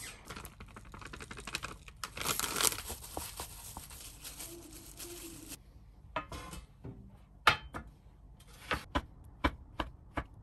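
Kitchen food preparation: a dense crinkling and tearing, like plastic packaging being pulled open, that cuts off suddenly about five and a half seconds in, followed by scattered light clicks and knocks of utensils.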